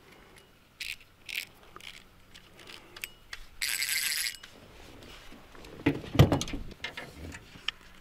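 Fishing tackle being handled and set up: scattered clicks and small metallic rattles from spinning rods and reels, a short rasp about halfway through, and a heavier knock about six seconds in.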